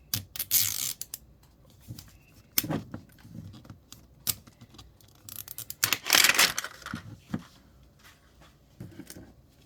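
Plastic packaging of a Miniverse capsule ball being torn open and crinkled, in two noisy bursts, the second and loudest about six seconds in, with scattered clicks and taps of small plastic parts being handled between them.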